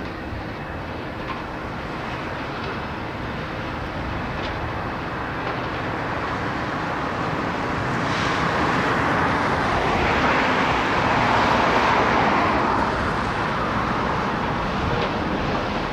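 A vehicle passing by: a steady rushing noise that builds to a peak a little past the middle and then fades, with a faint low hum underneath.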